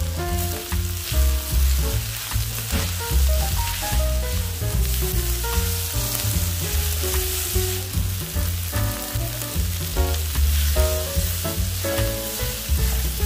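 Chicken and shredded vegetables sizzling in a hot steel wok on medium-high heat while a wooden spatula stirs and tosses them constantly. The sizzle is a steady hiss, with the scrape and rustle of the stirring.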